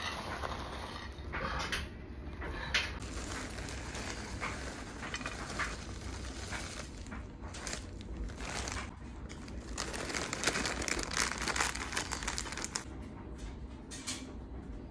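Plastic zip-top bags crinkling as hazelnuts and chocolate pieces are poured out of them into a glass baking dish, the pieces landing with many small clicks.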